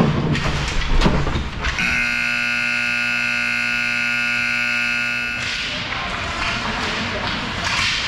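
Ice rink horn sounding one steady tone for about three and a half seconds, starting about two seconds in. Before it, a couple of loud knocks as play crowds around the net.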